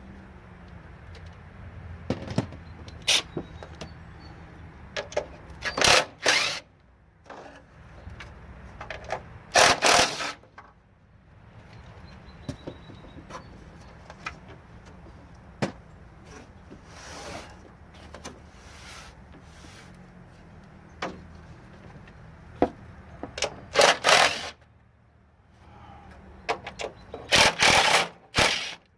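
Hand work on the metal mounting of a CRT television's picture tube as its bolts are taken out: scattered clicks and four loud, short rattling scrapes, over a steady low hum.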